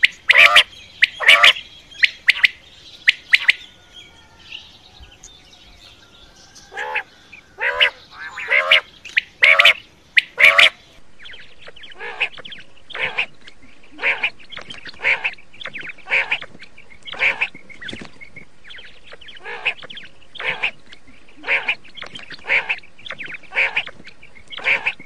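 Quail calling over and over in short, sharp calls: quick runs of calls at first, then, after a pause, about one call a second over a steady hiss.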